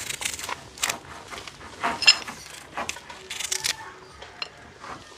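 Kitchen utensils knocking and scraping in irregular short strokes, with a brief ringing clink about two seconds in.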